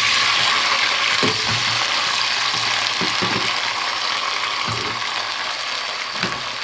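Hot oil in a deep stainless-steel pot sizzling loudly as a whole batch of chopped hot peppers is dropped into it at once. A dense, crackling hiss starts suddenly and eases slowly as the peppers settle in the oil.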